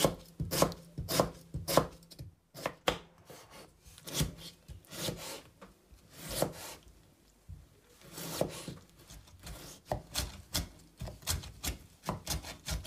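Kitchen knife chopping a tomato on a wooden cutting board: a string of sharp knocks of the blade against the board, coming quicker near the end as the tomato is diced into small pieces.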